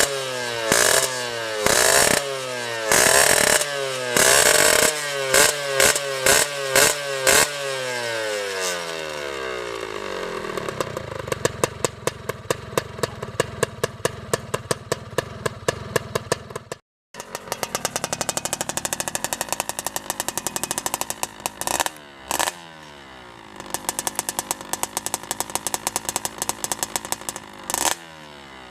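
Yamaha F1ZR two-stroke single-cylinder engine, set up for grasstrack racing, blipped repeatedly in quick throttle stabs, the revs falling back after each. It then settles to a popping, crackling idle, with a couple of single revs later on.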